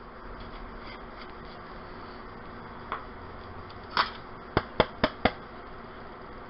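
Light tapping on a hard surface: a small click, a brief rustle, then four quick sharp taps in just over half a second.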